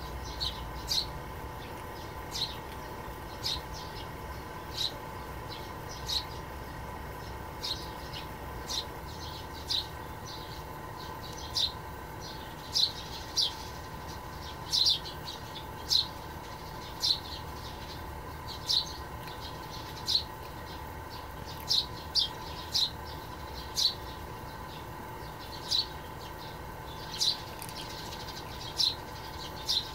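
A small bird chirping, single short high chirps repeated irregularly about once a second, over a steady faint background hum.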